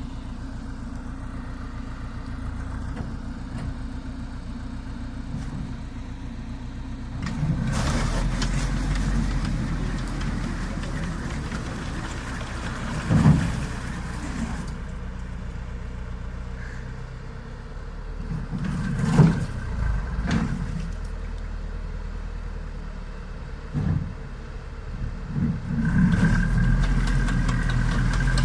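Engine of a homemade tracked all-terrain vehicle running through a failed stream crossing. It gets louder about seven seconds in, surges briefly twice in the middle, and runs louder again near the end.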